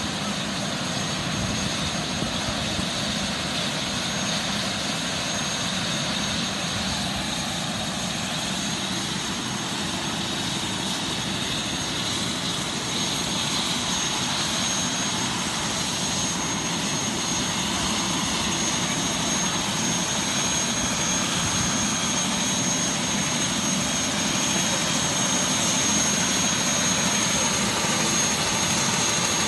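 Eurocopter EC130 helicopter's turbine engine running on the ground with its rotors turning: a steady high turbine whine over a constant rush of engine and rotor noise, growing slightly louder near the end.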